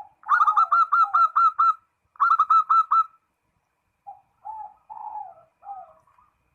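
Zebra dove (perkutut) singing to call a rival: two quick runs of rapid repeated coos, about five a second, then softer, lower cooing phrases near the end.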